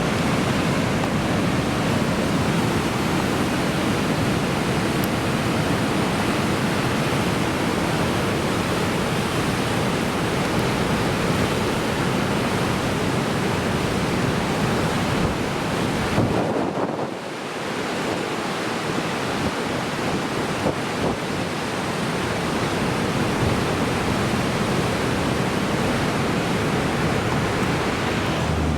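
Big swells driven by an approaching typhoon breaking heavily and without pause on the shore, a dense, steady wash of surf with wind buffeting the microphone. The noise dips briefly a little past halfway, then builds again.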